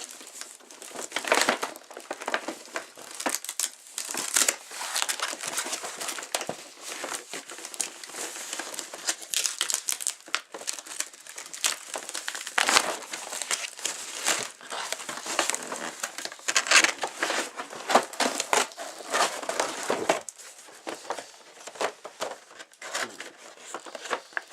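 Packaging being torn open and crumpled by hand: irregular crinkling and crackling in bursts, thinning out near the end.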